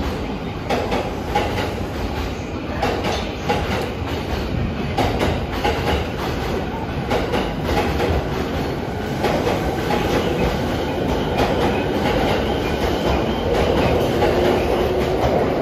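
Tokyo Waterfront Area Rapid Transit 70-000 series electric train pulling out of a station platform and gathering speed, its running noise growing steadily louder as the cars roll past.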